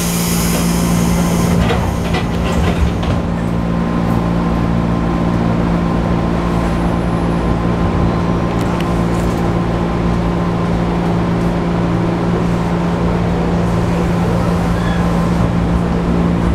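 Inside a JR 205-series electric commuter car standing at a station: the passenger doors close with a burst of air hiss and a few knocks in the first three seconds. After that there is the steady hum and rumble of the stationary train's onboard equipment.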